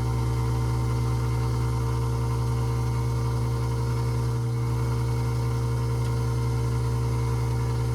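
Newly installed 1/2 hp garbage disposal running steadily with an even electric motor hum, on its first test run after installation.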